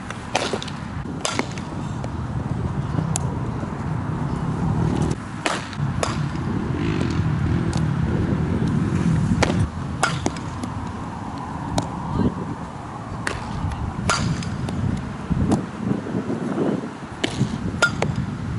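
Low wind rumble on the microphone, with about a dozen sharp knocks scattered through it from softball fielding drills: a bat striking ground balls and the ball smacking into a leather glove.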